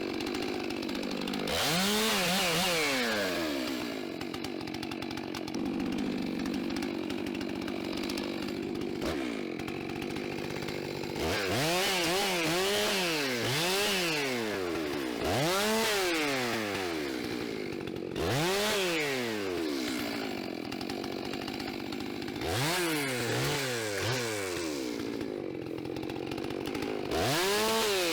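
Two-stroke chainsaw revving up and dropping back again and again, about every one to two seconds, with a hiss over the engine while the chain is running.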